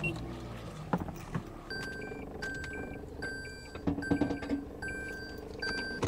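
A car's electronic warning chime beeping in a steady repeating pattern, about one beep every 0.8 seconds, starting a couple of seconds in, over a low steady hum and a few light clicks.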